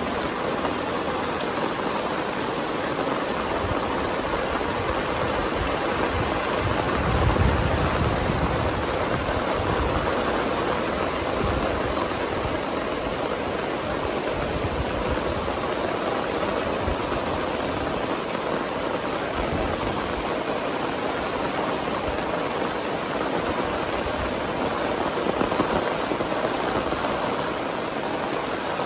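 Very heavy rain pouring down in a dense, steady hiss, with a brief low rumble about seven seconds in.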